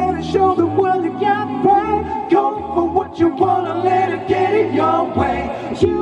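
Six-voice male a cappella group singing close harmony into handheld microphones, with a low held bass line under the chords.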